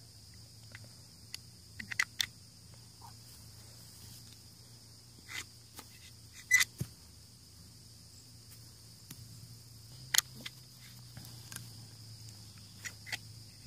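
Faint, steady high-pitched chirring of insects, broken by scattered short clicks and taps, the loudest about six and a half and ten seconds in.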